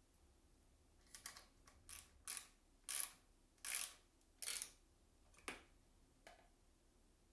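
A small screw being turned with a screwdriver to fix a metal bracket onto a circular saw's blade guard: about seven short rasping twists, starting a second in and ending with a faint one near the end, the loudest in the middle.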